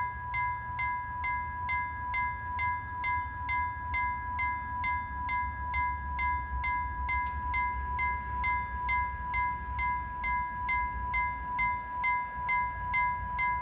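Level crossing warning bell switching on abruptly: an electronic two-tone ringing with an even strike about twice a second. It signals that a train is approaching and the barriers are coming down.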